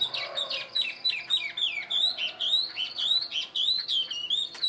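Chinese hwamei (melodious laughing thrush) singing: a fast run of short down-slurred whistles, then a string of looping whistles that rise and fall, about three a second.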